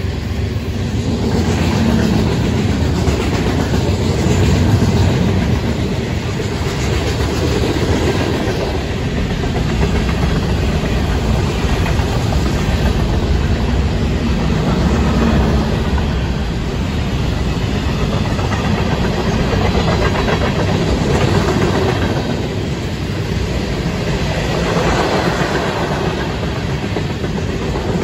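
Florida East Coast Railway freight train's cars, mostly covered hoppers, rolling past: a steady, loud rumble and clatter of steel wheels on the rails.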